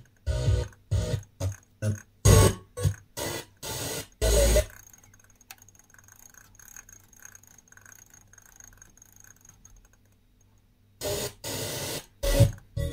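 FM radio tuner receiving a distant station in mono over sporadic E: loud, choppy, broken-up audio for the first few seconds, then the signal fades to faint hiss, and another station's audio breaks in loudly about two seconds before the end, after retuning.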